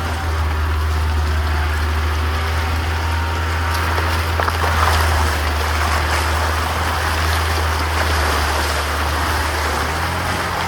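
UAZ Hunter off-road vehicle driving on rough ground: a steady low engine and drivetrain drone with a broad road-noise rumble, and a few brief knocks about four to five seconds in.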